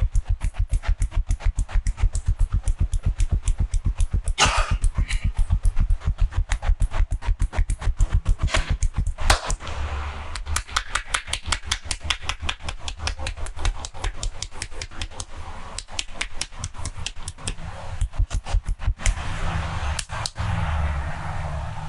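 Rapid percussive massage strokes: hands striking the body in a quick, steady rhythm of several dull slaps a second, with a few sharper claps among them.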